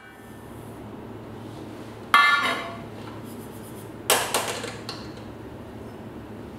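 Stainless steel saucepan and pouring cup knocking on a portable gas stove's metal grate: two sharp metallic clanks with ringing, about two seconds apart, the second followed by a brief rattle. A faint hiss of sugar pouring into the pan is heard at the start.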